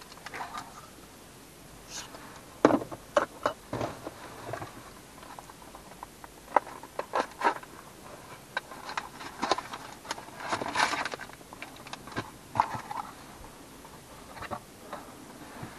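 Thin plastic model-kit parts being pressed out of their flat plastic cards and handled: irregular clicks, snaps and crackles, the loudest snap a few seconds in and a busy run of them in the middle.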